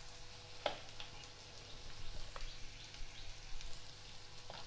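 Chopped onions frying in oil in a nonstick kadai: a faint sizzle with a few sharp crackles, about three spread through.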